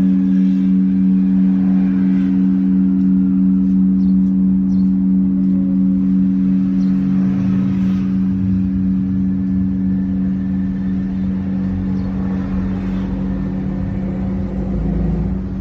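A newly cast bronze great temple bell (đại hồng chung) humming on after a strike. Its deep tones ring steadily, pulse slightly and fade slowly. A low rumble rises underneath in the second half.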